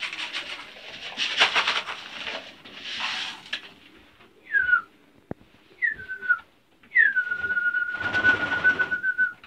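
Grain feed poured from a plastic tub into a wooden feeding trough, a dry rattling hiss for about three and a half seconds. Then a person whistles to call homing pigeons to the feed: two short falling whistles, then a longer one that falls and holds a warbling tone. A flurry of pigeon wing flaps comes near the end.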